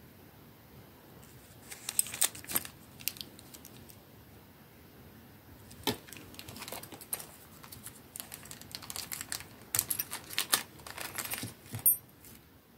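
Small zip-lock plastic bag crinkling as it is handled and opened, with light clicks of the small metal pocket clip and screw inside it. The crackling comes in several bouts, the sharpest about two seconds in and near the end.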